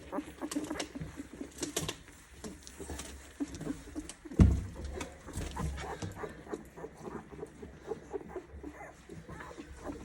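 Ten-day-old Old English Sheepdog puppies nursing: many small, irregular suckling noises and faint puppy squeaks, with one soft thump about four and a half seconds in.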